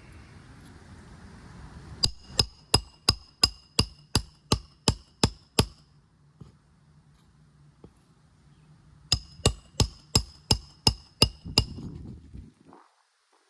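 Roofing hammer striking a steel roof snake to drive roofing nails under a 3-tab shingle, with ringing metallic blows about three a second. There are two runs: about eleven strikes, then a pause, then about eight more.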